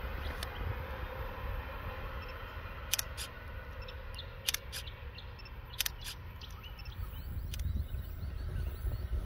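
Low rumble of a train approaching along the line in the distance, growing louder near the end, with a few sharp clicks between about three and eight seconds in.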